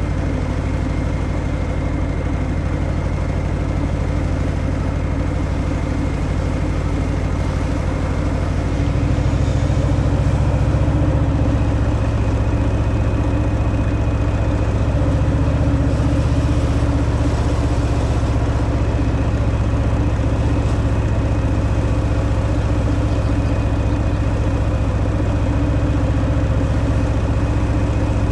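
Harley-Davidson Milwaukee-Eight 114 V-twin running through its stock exhaust under way, a steady low engine sound. It gets louder and fuller about nine seconds in as more throttle is given.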